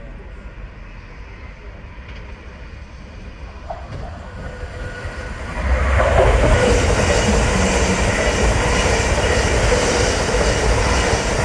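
Electric multiple-unit passenger train approaching and running through the station, growing louder until it passes close by about six seconds in, then a steady rush of wheels on rail as the carriages go past.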